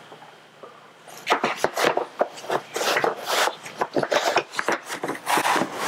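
Plastic knocks, rubbing and clicks of a Disney Baby Peeking Minnie travel system's infant car seat being lowered onto the stroller frame and fitted into place, starting about a second in.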